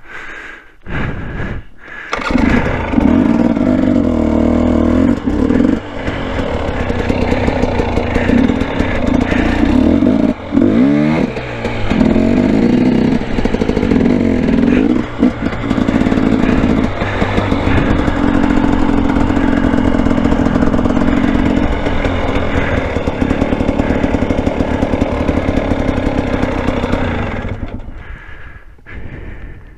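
Two-stroke dirt bike engine: a few short sputters, then it catches about two seconds in and runs loud, with repeated rises and falls in revs as the throttle is worked. The sound fades away near the end.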